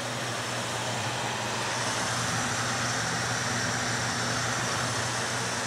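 Electric fans running steadily: an even whir of moving air over a low, constant motor hum.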